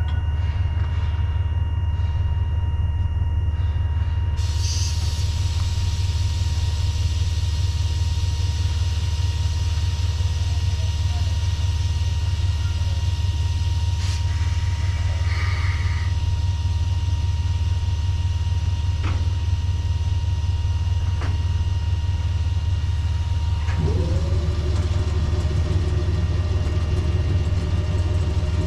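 ED45 electric locomotives standing in the yard: a steady low rumble with thin, steady high electrical tones and a few faint clanks. Near the end a motor on board spins up with a rising whine that levels off into a steady hum.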